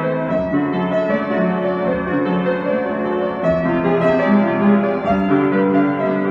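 Solo piano playing a slow melody over held chords, notes ringing on into one another.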